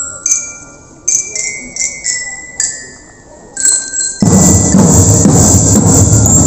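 Bell-like struck metal notes, one after another, each ringing and fading, stepping down in pitch. About four seconds in, a loud, steady rushing noise starts suddenly and covers them.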